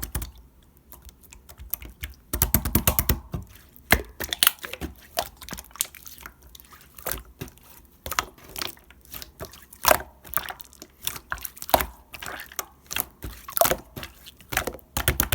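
A soft, bouncy, jelly-like material being squeezed and poked, giving irregular runs of wet clicks and crackling pops in quick clusters.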